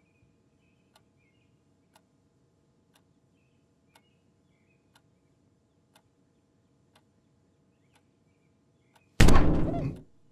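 Cartoon foley of a clock ticking about once a second in a quiet room, with faint bird chirps. About nine seconds in there is a sudden loud thump, as the cat hits the window glass, followed by a wavering squeak that fades within a second.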